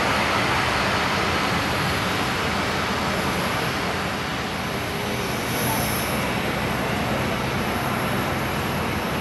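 Boeing 737-800 jet engines running at low power as the airliner slows and taxis after landing: a steady rushing noise with a faint high whine.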